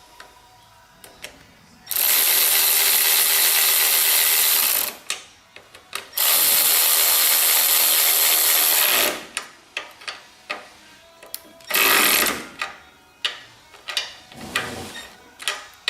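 A handheld power tool runs in two bursts of about three seconds each and a short one near the end, with small clicks of parts being handled in between.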